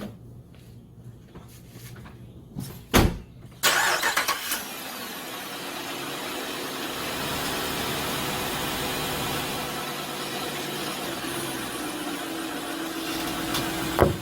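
A sharp thump about three seconds in, then a car engine cranks, fires with a loud burst and settles into steady running. Another short knock comes near the end.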